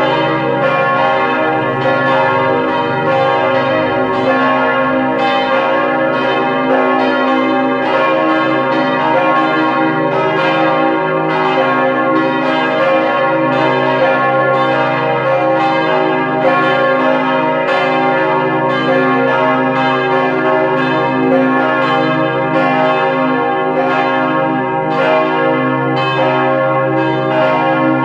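Church bells cast by the Perner foundry, from a peal tuned C, E-flat, G and B-flat, swinging and ringing together in a steady stream of overlapping strokes.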